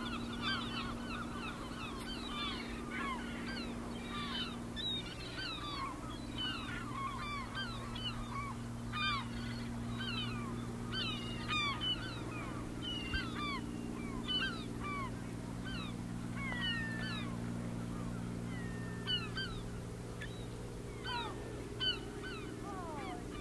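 A flock of birds calling: many short hooked calls overlapping one another without pause, over a steady low hum.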